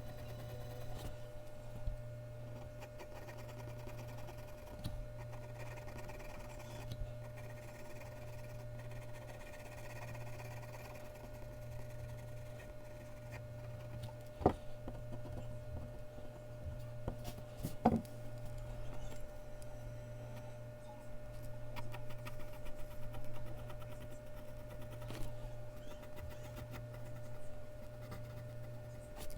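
Mechanical pencil scratching in short strokes on Bristol paper, over a steady low electrical hum, with two sharp taps about halfway through.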